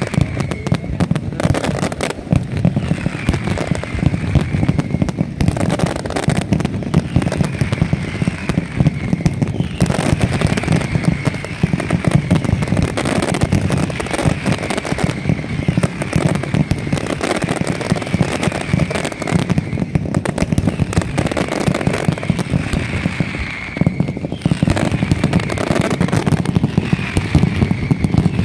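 Nocturna (nighttime mascletà) fireworks: a dense, continuous barrage of rapid firecracker bangs and crackle. A short whistle falling in pitch recurs about every two seconds.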